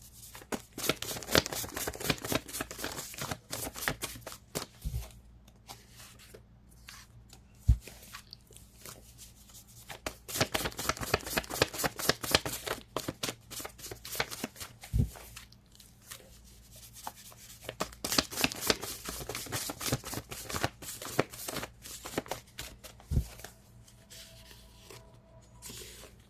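A deck of cards being shuffled by hand in bursts of rapid rustling and flicking. A few dull knocks come in between, the sharpest a little under eight seconds in.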